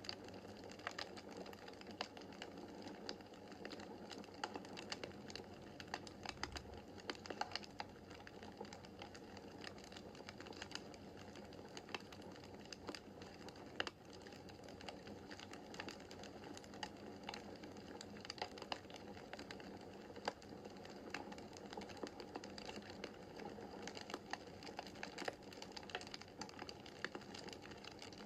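Wood fire burning in a fireplace: a steady soft hiss with frequent small, irregular crackles and snaps of burning logs.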